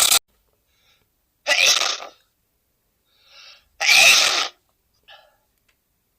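A man sneezing twice, about two seconds apart, each a short sharp burst, with faint breaths between.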